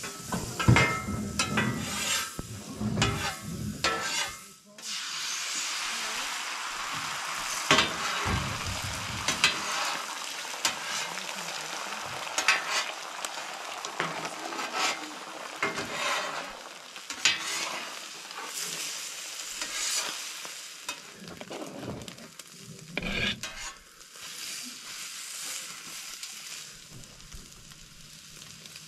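Eggs and potatoes frying on a hot steel camp-stove griddle, a steady sizzle that starts about five seconds in. A metal spatula scrapes and knocks on the griddle, on its own in the first few seconds and then over the sizzle.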